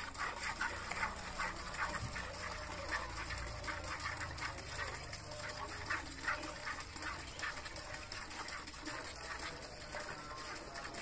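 Cow being hand-milked by two people at once: quick squirts of milk hissing into a steel pail, several a second in an uneven rhythm.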